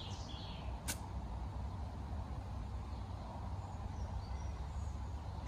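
Outdoor ambience: a steady low rumble of wind on the microphone, a single sharp click about a second in, and faint bird chirps in the second half. Right at the end comes the sharp crack of a golf club striking the ball on a punch-out shot.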